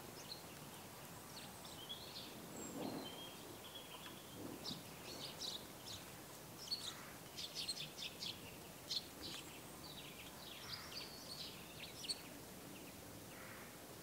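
Eurasian tree sparrows chirping: many short, high chirps that start about two seconds in and come thick and fast over a steady faint outdoor hiss.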